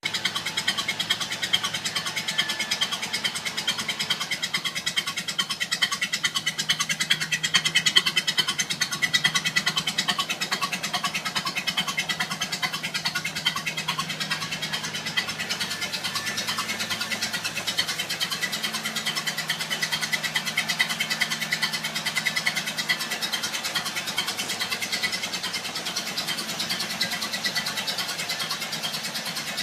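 1930 Ford Model A's four-cylinder flathead engine running steadily, with a fast, even chatter of firing pulses.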